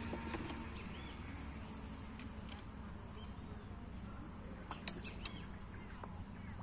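Quiet outdoor background: a steady low rumble with a few short sharp clicks, the loudest just before five seconds in, and several brief high chirps of small birds.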